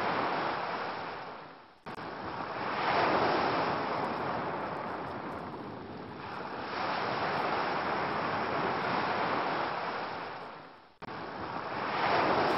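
Ocean waves breaking and washing ashore, swelling and easing every few seconds. Twice, about two seconds in and near the end, the surf fades away and then cuts back in abruptly.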